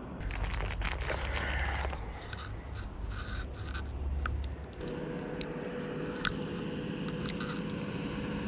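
Plastic jig packet crinkling and hands handling tackle close to the microphone, crackly and uneven for about the first half. Then a steady low hum with three sharp ticks.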